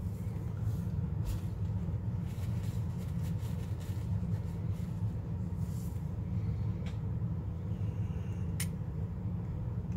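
Steady low background hum with faint rustling of tissue paper and a couple of light plastic clicks as small plastic model body panels are handled and pressed into place.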